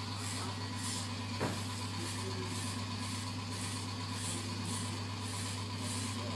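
Cordless electric hair clipper running with a steady hum as it cuts long hair, with a faint hiss that pulses about one and a half times a second and a single click about a second and a half in.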